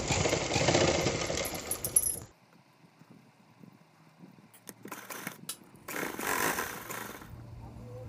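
Rima sewing machine running a fast line of stitches, stopping abruptly about two seconds in. A few faint clicks follow, then a short rustle of cloth being handled.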